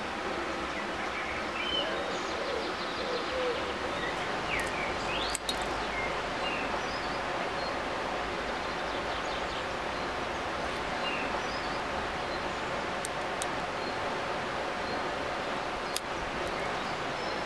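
Steady rush of a flowing river, with birds chirping now and then and a couple of small sharp clicks, one about five seconds in and one near the end.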